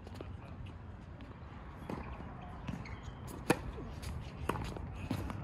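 Tennis ball bounced on a hard court: a few separate sharp knocks about a second apart, the loudest near the middle.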